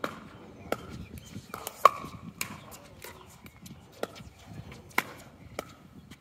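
Pickleball paddles striking a plastic pickleball in a fast doubles rally: a string of sharp pops about one a second, the loudest about two seconds in.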